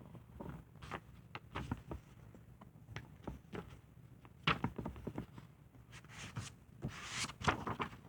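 Faint handling noise from a picture book being opened and its pages turned: scattered light taps and rustles, with two louder paper rustles, one about halfway through and one near the end.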